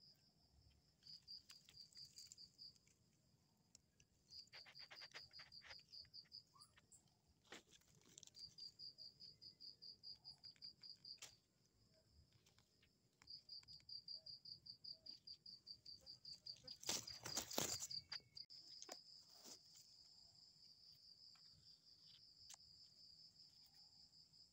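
A cricket trilling in high, pulsing bouts of a few seconds each, broken by short pauses, over scattered faint clicks. About 17 seconds in, a brief cluster of louder crackling knocks is the loudest sound.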